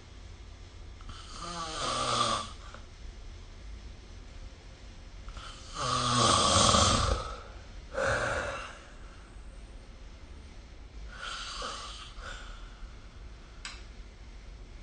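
A sleeping person snoring: four snores a few seconds apart, the loudest about six seconds in, followed at once by a shorter one, and the last one fainter.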